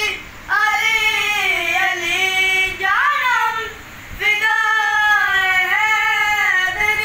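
A boy's high voice singing a devotional song in praise of Imam Ali, unaccompanied. Long held, gliding notes in two phrases, with a short break about four seconds in.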